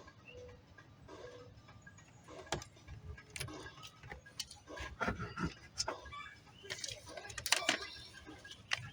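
Irregular small clicks, taps and rustles of hands handling parts and tools, denser in the second half.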